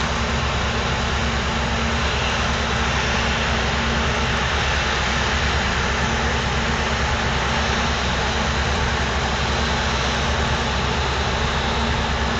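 Steady drone of a river cruise ship's engines under way, with a constant rush of wind and water.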